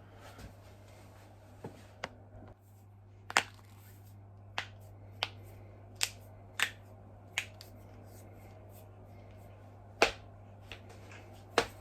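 Joints being cracked by hand: a series of sharp, separate pops, about eight loud ones spaced roughly half a second to a second apart, with a few fainter clicks and a pause of a couple of seconds before the last two loud pops.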